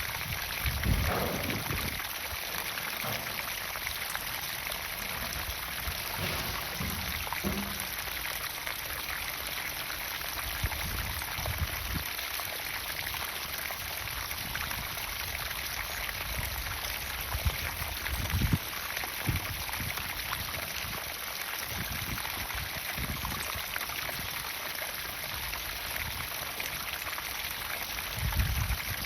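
Water pumped into a garden pond, pouring and splashing steadily, with a few brief low thumps.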